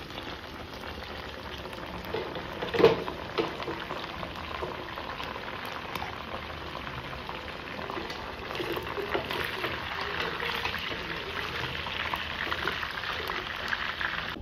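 Pork pieces frying in their own rendered fat in a stainless steel pot, a steady sizzle full of crackles and pops that grows a little louder in the second half. A single sharp knock about three seconds in.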